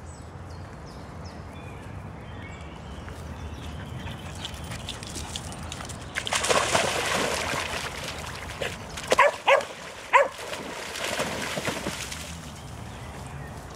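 Dogs splashing through shallow pond water, and partway through a dog barks three times in quick succession.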